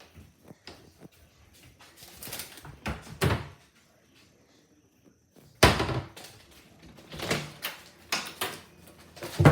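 A door shut with a bang a little past halfway, amid a scatter of knocks and bumps before and after it.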